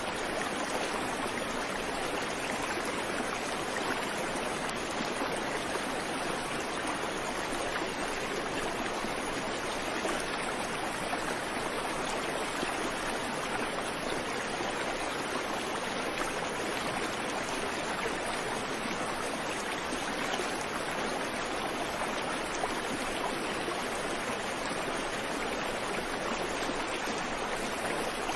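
Creek water flowing steadily over rocks, a constant rushing and babbling with no birds.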